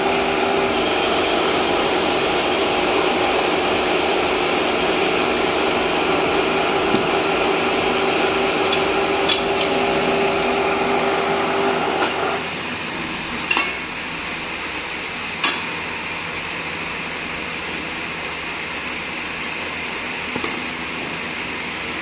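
Steady machinery noise of a copper-melting furnace shop, with a pitched hum that cuts off about twelve seconds in, leaving a quieter steady noise. A few light metal clinks sound after the hum stops.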